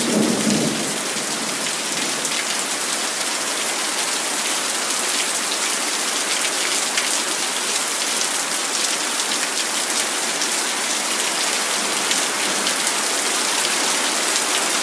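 Steady heavy rain pouring down in a thunderstorm, a dense even hiss with many single drops ticking sharply close by. A brief low sound comes right at the start.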